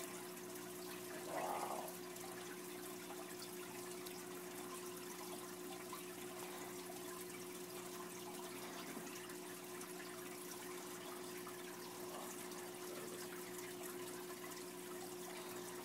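Aquarium water trickling and bubbling steadily from rising streams of air bubbles, over a steady low hum. A short louder sound comes about a second and a half in.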